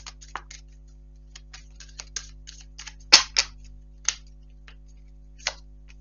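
Tarot cards being shuffled and handled: a string of short, crisp card snaps and clicks, loudest about three seconds in.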